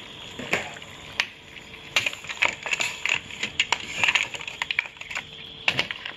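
Green mussel shells clacking against one another and the stainless steel pot as a wooden spoon stirs them, irregular clicks and knocks several a second over the steady hiss of the boiling liquid.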